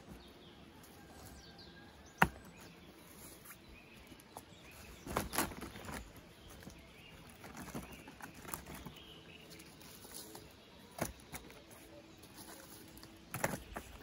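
Slabs of tree bark being laid and pressed onto a roof of logs: scattered knocks, scrapes and rustles of bark on bark and wood, with one sharp knock about two seconds in.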